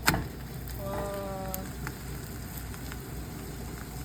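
Eggs frying in a pan with a faint steady sizzle, broken by a sharp clack right at the start and a brief steady tone about a second in.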